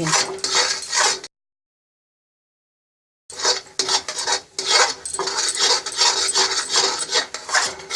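A utensil stirring and scraping around a kadhai in a run of quick, uneven strokes as roasted gram-flour halwa is worked with hot water. About a second in, the sound cuts to dead silence for roughly two seconds, then the stirring resumes.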